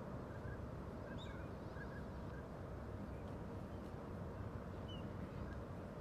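Faint, short bird calls scattered over a steady low outdoor rumble, with a couple of higher chirps about a second in and near the end.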